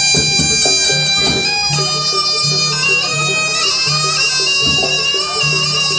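Jaranan dance music: a shrill, reedy slompret (Javanese shawm) plays a wavering, ornamented melody over a steady, repeating low beat.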